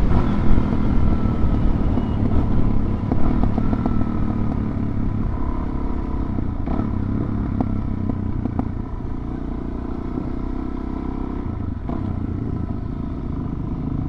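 Suzuki DR-Z400 dual-sport motorcycle's single-cylinder four-stroke engine running steadily under way, with a low rumble throughout. A couple of brief clatters come about half a second and three seconds in, and the sound eases a little from about nine seconds in.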